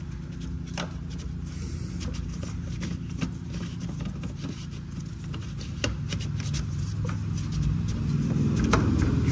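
A fuel pump lock ring being turned by hand onto the fuel tank, giving a few short scrapes and clicks over a steady low hum.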